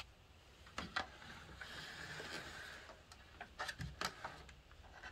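Faint handling sounds of a Revox A77 reproduce amplifier card being pulled out of its slot in the card cage: a few small clicks, a soft scraping slide for a second or so, then more light clicks.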